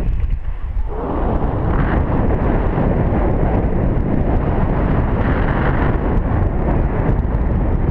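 Wind rushing over a camera microphone in paraglider flight, a loud, deep, steady buffeting that eases briefly in the first second.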